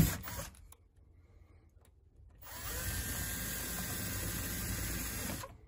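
Power drill pre-drilling pilot holes for mounting screws in a wooden door frame. The first run ends with a sharp knock right at the start. After about two seconds of quiet the drill runs again for about three seconds with a faint steady whine, then stops near the end.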